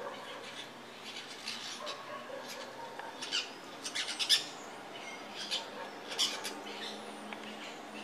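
Small green parrots giving short, sharp, high-pitched calls in scattered bursts, with a quick cluster about four seconds in and another just after six seconds.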